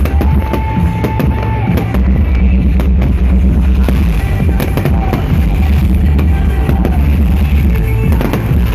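Loud music with drums and a heavy, steady bass, with firework bangs and crackles sounding through it.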